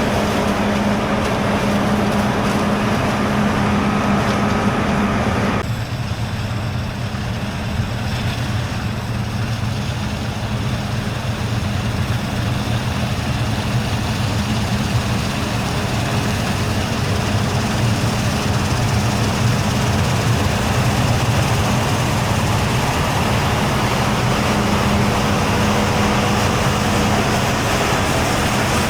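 Heavy diesel harvest machinery running steadily with a low drone. The sound changes abruptly about six seconds in, to a lower, duller drone.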